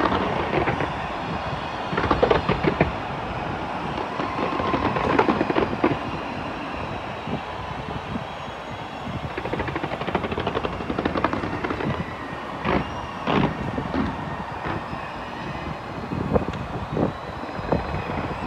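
Fireworks bursting from the Burj Khalifa in a dense, continuous barrage, a rumbling mass of rapid bangs and crackles, with several louder single bangs in the second half.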